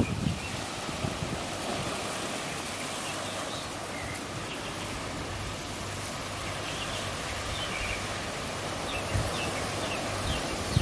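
Steady seaside ambience: the hiss of wind and small waves washing over a rocky shore, with a few short bird chirps in the second half.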